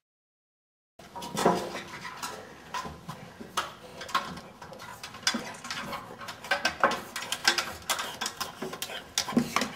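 A bulldog climbing a ladder: irregular clicks, taps and scrapes of its claws and paws on the rungs, starting about a second in.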